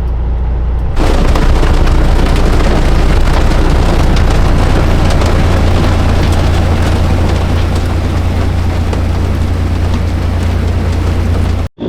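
A diesel truck engine drones steadily. About a second in, a loud rushing, crackling noise sets in over it and holds until it cuts off suddenly near the end.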